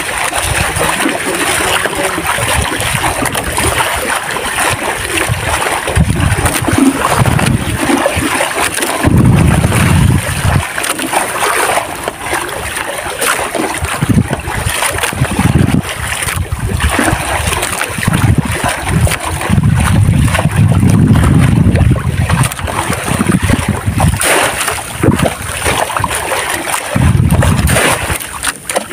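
Seawater splashing and sloshing as a long-handled scoop net is swept and plunged through the water beside a small boat, with irregular low rumbles swelling and fading every second or two.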